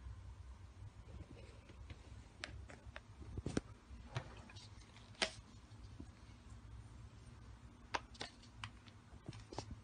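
Handling noise: scattered light clicks and knocks as a massage gun and its attachment heads are taken out of their foam-lined carrying case. The loudest knocks come about three and a half and five seconds in. The gun's motor is not running.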